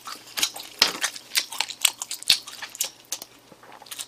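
Close-miked chewing: wet mouth clicks and lip smacks at an irregular pace of a few a second, with one firmer knock about two and a third seconds in.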